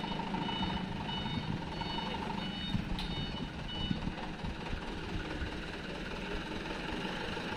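A truck's reversing alarm beeping about twice a second over its running engine while it is manoeuvred; the beeping stops about halfway through and the engine keeps running.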